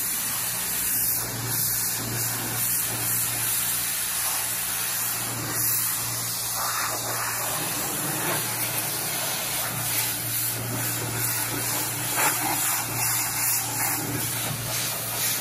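Pressure washer spraying a high-pressure jet of water onto a jet ski's fibreglass hull: a steady hiss of spray over a steady low hum from the pressure washer.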